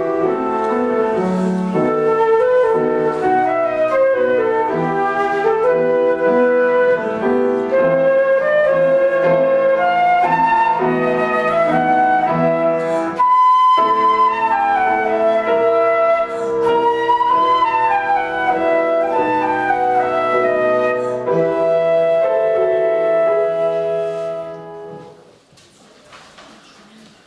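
Instrumental music: a flute-like wind instrument plays a moving melody over held lower notes. The music stops about 25 seconds in.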